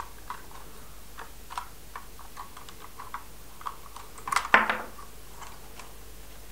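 Light clicks and knocks of a plastic toy boat and trailer being handled and unclipped from each other, with a louder short plastic clatter about four and a half seconds in.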